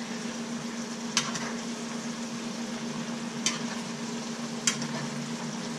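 Lo mein noodles and vegetables sizzling in a frying pan with chicken stock while being stirred with a fork. The utensil clicks against the pan three times, about a second in, midway and near the end, over a steady low hum.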